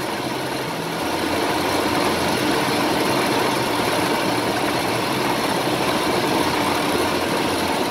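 1989 Ford F-250 pickup engine idling steadily under the open hood, with the AC set to high, while the air-conditioning system is being charged.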